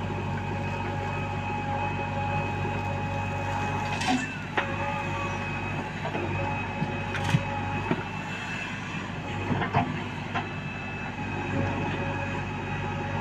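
JCB backhoe loader's diesel engine running steadily with a steady whine over it, and a few sharp metallic clanks, the loudest about seven seconds in.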